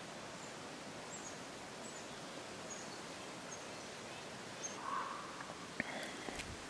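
Quiet forest ambience: a steady soft hiss with faint, short high-pitched chirps repeating about every half second to second. A few sharp knocks near the end.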